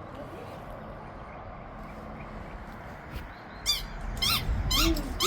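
A dog's short high-pitched yips or whines in play, a quick run of about three a second starting late, after a few seconds of quiet outdoor background.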